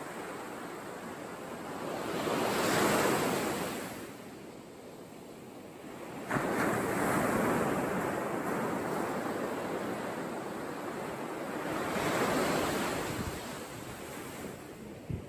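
Sea surf washing in and out, the noise swelling and easing every few seconds, mixed with wind. The sound steps up suddenly about six seconds in.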